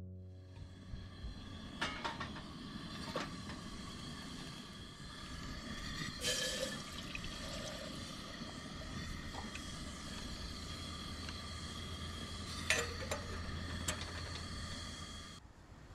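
Water running or splashing steadily, with a handful of light clinks and knocks over it, like dishes or utensils being handled.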